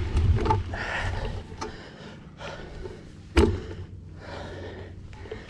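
A cyclist's heavy breathing with the camera close to his chest: short, hard breaths about one a second, fading over the stretch. A single sharp knock comes about three and a half seconds in.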